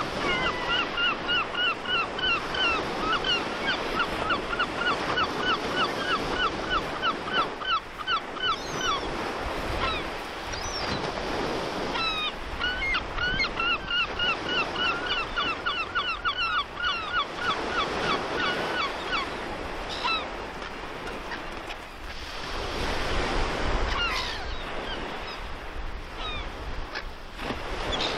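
Rough sea surf breaking and washing in a steady rush, swelling near the end. Over it a bird calls rapidly and evenly, about four short calls a second, in two long runs, one at the start and one in the middle, with a few scattered calls between.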